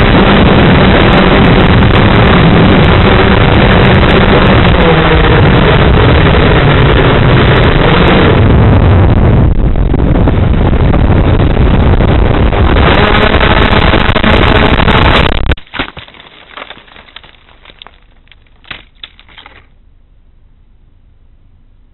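XAircraft X650 V8 quadcopter's motors and propellers with heavy wind rushing over its onboard camera microphone, loud and continuous, then cut off abruptly about 15 seconds in as the throttle is chopped and the quadcopter hits the treeline. A few scattered knocks and rustles follow as it comes to rest among branches and leaves.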